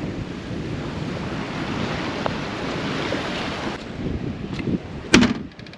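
Wind rushing over the microphone and water noise aboard a sailboat under way. The hiss thins suddenly nearly four seconds in, and near the end a single sharp knock rings briefly.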